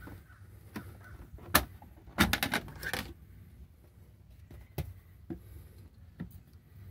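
Plastic sun cover being pried off a Simrad chartplotter display: a sharp snap, then a quick run of clicks and rattles, followed by a few scattered clicks of handling.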